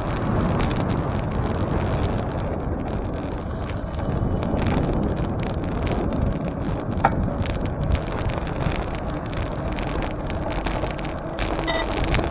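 Wind buffeting the microphone over tyre and road noise while riding a bicycle. A short tone sounds about seven seconds in, and near the end a steady ringing tone with regular ticks comes in.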